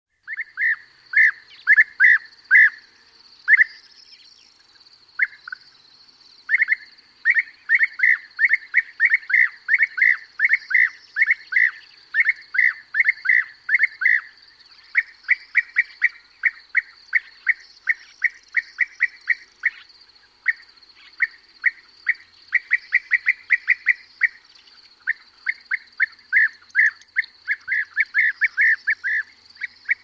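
European bee-eaters calling: a perched bird close by gives short, liquid calls in quick runs of several a second, with brief pauses, answered by others calling in flight. Larks and a corn bunting sing faintly behind.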